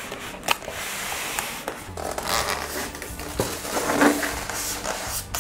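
Cardboard box and styrofoam packing sliding and scraping against each other as the box is pulled open and the foam tray is lifted out, with a few sharp knocks.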